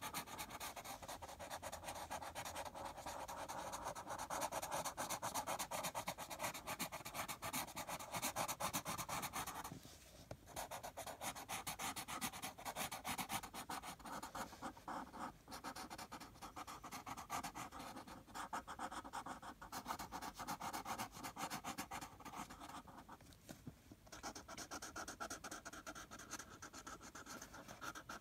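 Felt-tip marker scribbling rapidly back and forth on paper, a dense scratching rasp with two short pauses.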